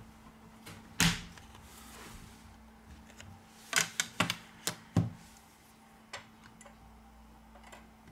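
Plastic back cover of a Xiaomi Redmi 6A being pried off with a guitar pick: a sharp click about a second in as a clip snaps loose, then a quick run of clicks and taps a few seconds later as the cover comes free and is handled.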